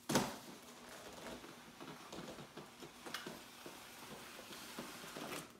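A large cardboard appliance box being handled and brought onto a granite countertop: faint rustling and scattered light knocks, with a sharper knock at the start and another about three seconds in.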